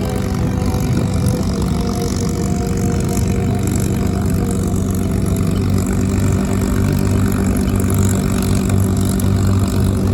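An engine running steadily, a low, even drone that keeps the same pitch throughout.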